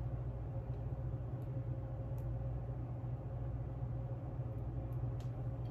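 Steady low background hum, with a few faint light clicks.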